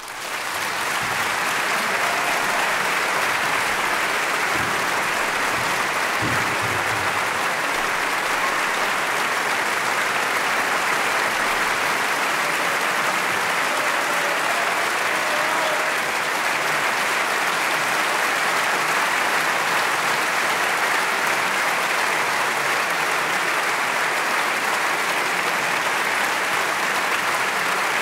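Large theatre audience applauding, swelling up within the first second and then holding steady and dense.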